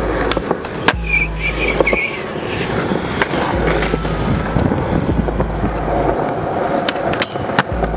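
Skateboard wheels rolling on smooth concrete. There is a sharp clack of the board about a second in and a couple more near the end, the pops and landings of kickflip attempts.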